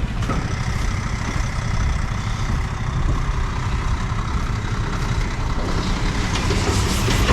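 Large diesel engine running steadily at low revs, with a deep, even throb.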